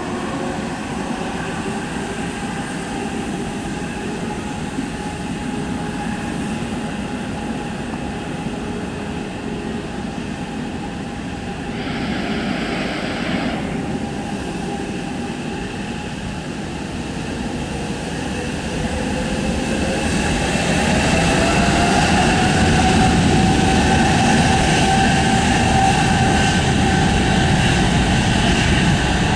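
Boeing 787-9's Rolls-Royce Trent 1000 jet engines running at low thrust with a steady whine as the airliner taxis, with a brief hiss about twelve seconds in. About two-thirds of the way through the engines spool up: the whine rises in pitch and the sound grows louder and stays there.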